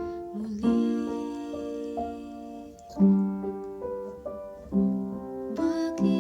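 Piano playing slow chords, a new chord struck about four times and left to ring and fade between strikes.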